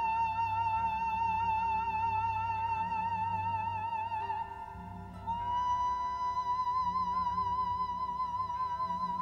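Background music: a slow melody of long held notes with a wide vibrato, stepping up to a higher note about halfway through, over a soft low pulsing accompaniment.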